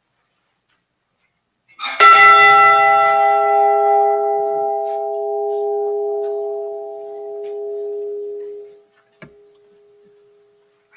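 A ship's bell struck once, ringing out and slowly fading over about seven seconds. It is tolled in memory of a lost crewman right after his name is called to the last watch.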